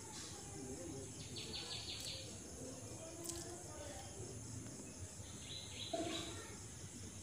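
Faint background noise with two short runs of high, quickly pulsed chirping, each about a second long: one a second in, the other about five seconds in.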